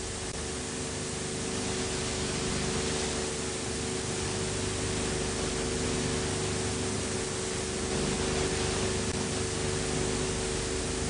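Steady hiss with a steady hum underneath, the background noise of an old film transfer to video.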